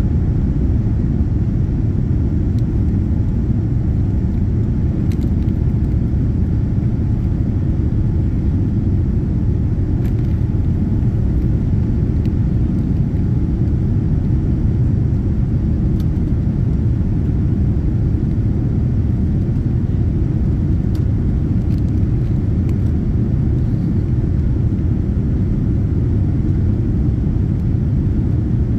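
Steady low rumble inside the cabin of a Boeing 787-9 climbing after takeoff: its Rolls-Royce Trent 1000 engines at climb power mixed with airflow noise, heard from a window seat behind the wing.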